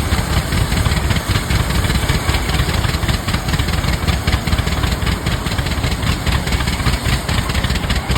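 Antique Rumely OilPull tractor engines, slow-running two-cylinder kerosene engines, running steadily with a rapid, even pulsing as they drive a sawmill.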